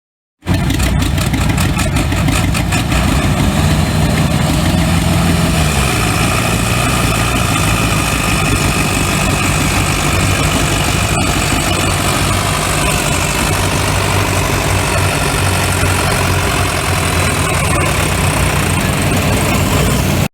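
Tractor engine running loud and steady, its pitch rising and dropping back briefly about five seconds in.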